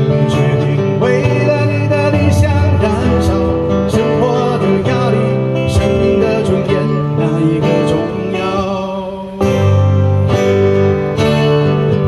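Two acoustic guitars strummed while two men sing a duet. About nine seconds in the playing drops briefly, then the strumming comes back louder.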